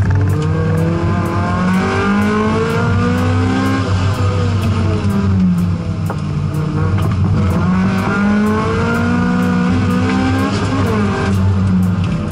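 Honda CRX race car's engine driven hard, heard from inside the cabin: its pitch climbs through the revs, falls away about four seconds in, then climbs again and falls once more near the end.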